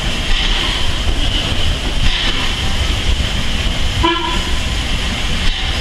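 Steam railway train of vintage carriages rolling past with a steady low rumble and hiss. A short tone sounds about four seconds in.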